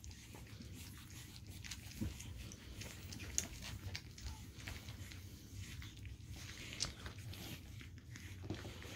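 Pug puppies wrestling and play-biting on their mother in a fabric dog bed: quiet scuffling, rustling and mouthing, with a soft thump about two seconds in.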